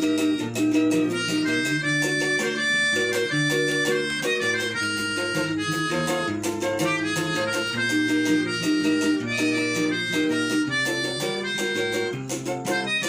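Instrumental song intro with no vocals: a melody line with quick runs up and down over plucked guitar-like accompaniment.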